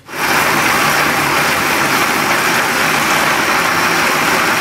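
Countertop electric blender running steadily at speed, grinding red chilies and lime juice into a sauce. It starts abruptly right at the beginning.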